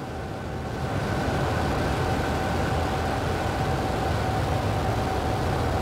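Falcon 9 first stage's nine Merlin 1D engines at liftoff: a steady, low-heavy rocket-engine rumble that grows louder about a second in as the rocket climbs off the pad.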